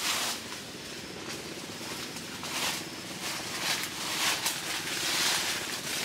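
Wind gusting through trees, the leaves rustling in waves that swell and ease several times, with a faint steady low hum underneath.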